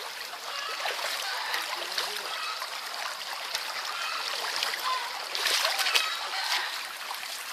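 Shallow stream water running steadily, with louder splashing in the water a little over five seconds in.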